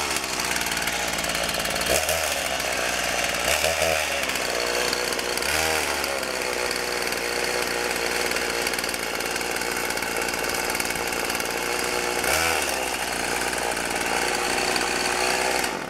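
Partner 465 two-stroke chainsaw running on year-and-a-half-old fuel mix, revved up and back down four times, then shut off at the very end.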